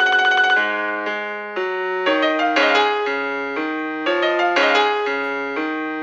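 Keyboard playing a short alarm tune: a chord held at first, then a melody stepping over bass notes, with a new note about every half second.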